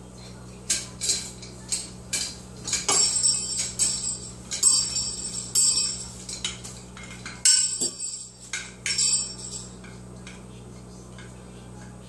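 Cockatoo shaking its hanging perch toy: the chain, small bell and plastic block clink and jingle in a run of short, irregular rattles. The rattles start about a second in and die away about two seconds before the end.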